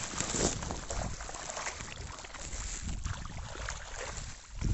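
Many fish thrashing and splashing at the water surface inside a cast net, an irregular patter of small splashes over a low rumble.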